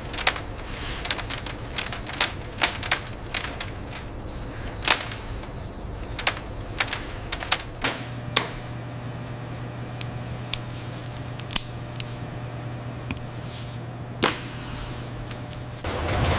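Factory machinery clicking and clacking in irregular sharp strokes over a steady background, with a low hum that comes in about halfway.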